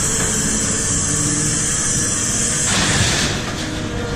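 Scrap-yard crane with a lifting magnet running: steady engine and hydraulic noise with a high hiss, which changes about two-thirds of the way in.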